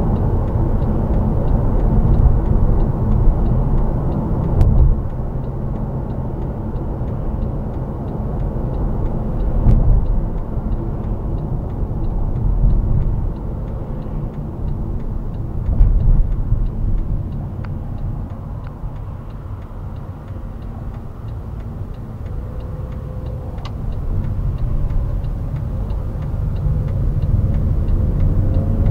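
Mercedes-Benz W212 E-Class driving at speed, heard from inside the cabin: a steady low road and engine rumble that swells and eases now and then.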